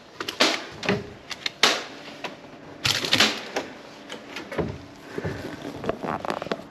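Irregular rustling and knocking from handling bags of discarded food in plastic wheelie bins: a string of short clatters and crinkles, the loudest about three seconds in.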